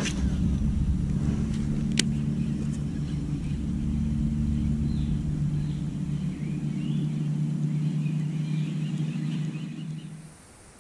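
A steady low mechanical hum that stops about ten seconds in, with sharp clicks at the start and again about two seconds in.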